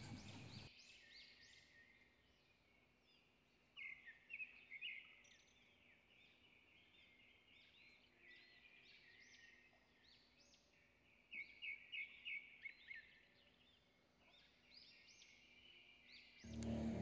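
Near silence with faint, high-pitched bird chirping throughout, a little louder about four seconds in and again around twelve seconds.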